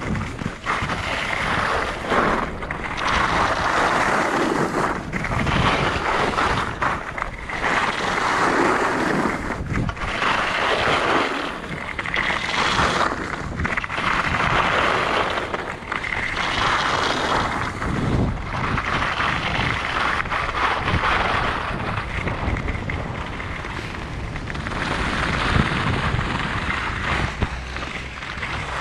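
Wind rushing over the microphone of a skier's camera at speed, with the hiss and scrape of skis on snow swelling and fading every second or two as the skier turns.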